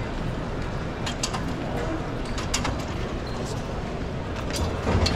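Busy city street ambience: a steady low traffic rumble with passers-by talking indistinctly, scattered sharp clicks and knocks, and a louder swell of low rumble near the end.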